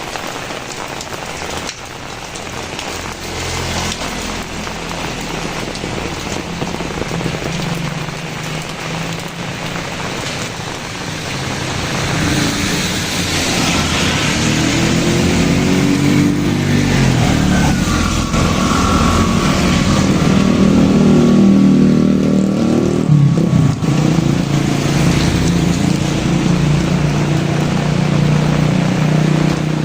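Steady rain, with a motor vehicle's engine growing louder from about twelve seconds in and passing close by, its pitch bending as it goes past; the engine stays loud under the rain toward the end.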